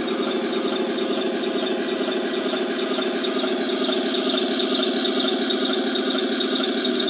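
Simulated tank engine sound from the 1/16 Tiger I RC tank's onboard sound unit, playing steadily through its small speakers while the model crawls slowly and pivots.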